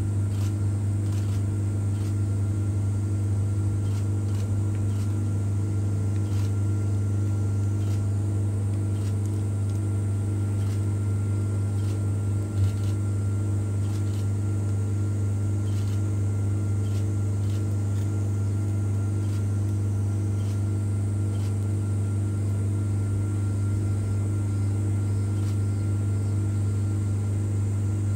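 Steady low machine hum, one deep tone with fainter overtones above it, and a single soft knock about halfway through.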